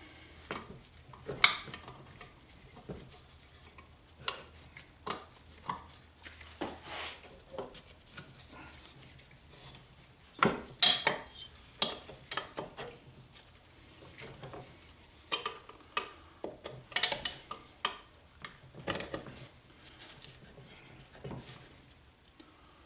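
Irregular metallic clinks and knocks of engine parts and tools being handled as the piston and connecting rod are worked out of a Briggs & Stratton 3.5 HP engine's cylinder.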